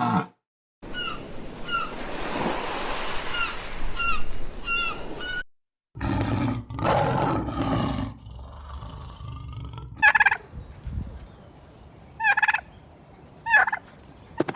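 Bird calls: small repeated chirps over a steady hiss, then a louder, lower sound, and three short, harsh pitched calls near the end.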